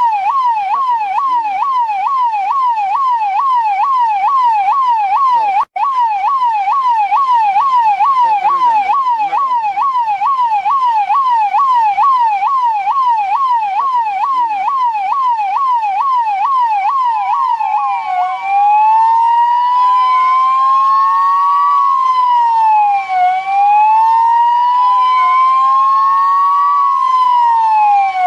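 Electronic police car siren on a fast yelp, sweeping up and down about two to three times a second. It cuts out for an instant about six seconds in. About eighteen seconds in it switches to a slow wail that rises and falls about every five seconds.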